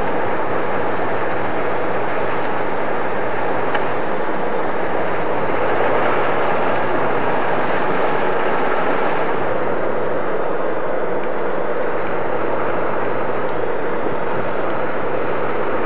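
Steady road noise inside a moving car: a low engine hum under an even rush of tyre and wind noise, swelling slightly about six to nine seconds in.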